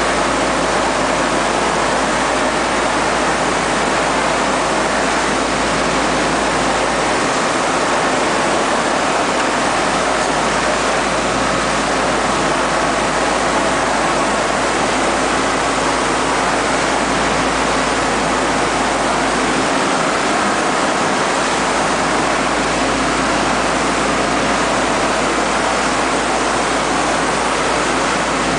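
Wet-mix shotcrete nozzle on a Putzmeister spraying arm: compressed air blasting concrete onto tunnel rock as a loud, steady, unbroken rushing hiss.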